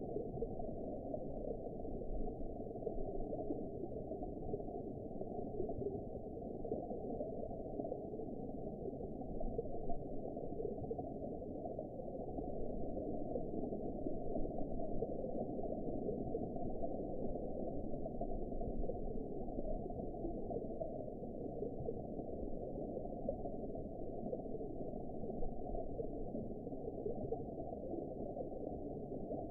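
Underwater ambience: a steady, muffled wash of low water noise with no high sounds in it, unchanging throughout.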